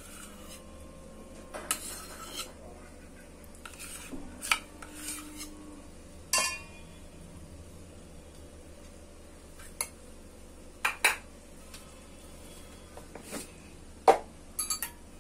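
Stainless-steel bowls clinking and knocking against each other at irregular moments as mawa is scraped from a small steel bowl into a larger one. The sharpest knock comes about a second before the end.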